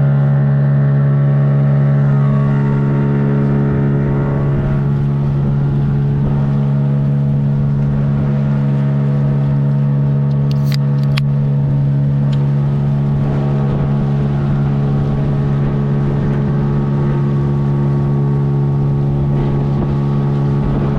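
Boat engine running at a steady speed, its pitch unchanging.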